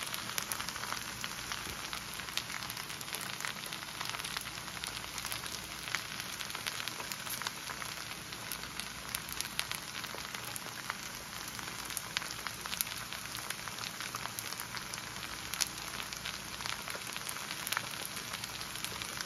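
Kimchi fried rice with two eggs frying in the middle, sizzling in a nonstick pan: a steady hiss with many small crackling pops.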